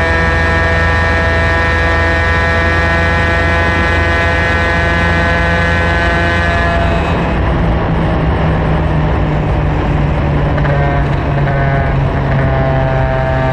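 Superkart two-stroke racing engine held flat out at one high, steady pitch down the straight. About seven seconds in the clean note breaks up into a rough, irregular sound as the driver lifts off and slows for the corner, and the engine picks up to a steady note again near the end.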